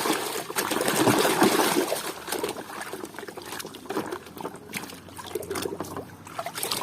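Water trickling and splashing as a muddy toy vehicle is rinsed and scrubbed by hand, louder for about the first two seconds and softer after, with small ticks of handling.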